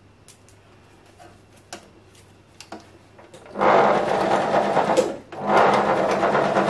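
Domestic sewing machine stitching through a rice-filled fabric heat pad in two runs, starting about halfway in, with a brief pause between them. Before that there are only a few faint clicks.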